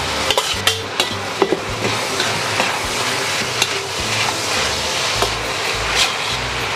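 Shredded pressed tofu and pork sizzling in a hot wok as a metal wok spatula stirs and turns it, with repeated sharp clicks and scrapes of the spatula against the pan over a steady frying hiss.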